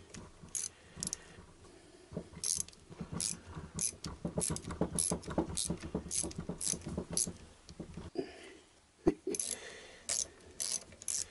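Socket ratchet clicking in short runs, about three clicks a second, as a small 8 mm nut on a motorcycle alternator housing is backed off, with a single knock near the end.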